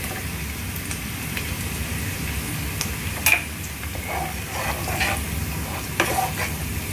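Chopped onions and a freshly cracked egg sizzling in oil in a non-stick wok, with a wooden spatula stirring and scraping against the pan. Two sharp knocks stand out, about three seconds and six seconds in.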